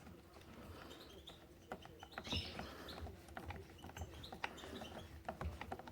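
Faint scattered clicks, taps and short scrapes of metal and plastic parts being handled as a Hatsan 125 air rifle is put back together.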